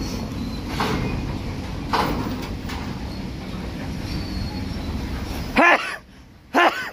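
Steady low engine rumble of shipyard machinery, with a few short knocks, cutting off suddenly about five and a half seconds in.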